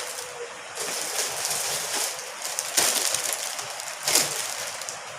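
Plastic packaging rustling and crinkling as packs of dried seaweed are handled, with a few sharper crackles.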